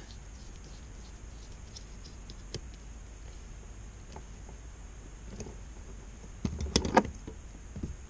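Faint ticks of a small screwdriver turning the screw terminals of a 12 V relay timer module. Near the end comes a brief clatter of louder handling knocks as the module is handled and set down.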